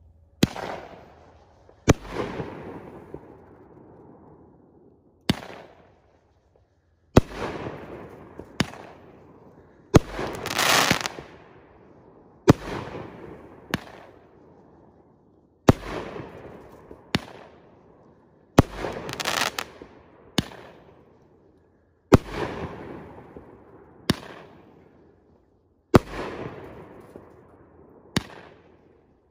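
Pyro Demon 'Third Base' aerial repeater firework going off shot after shot, about every one and a half to two seconds. Each shot is a sharp bang followed by a fading hiss as the burst dies away.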